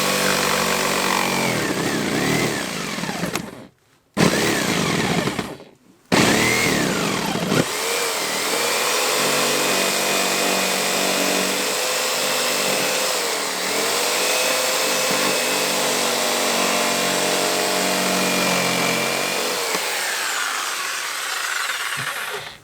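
Electric jigsaw cutting, its motor whine wavering in pitch as the blade works. It stops briefly twice a few seconds in, then runs steadily and dies away near the end.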